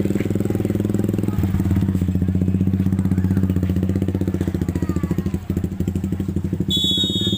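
Steady drone of a small engine running at a constant speed. Near the end, a referee's whistle blows once, briefly.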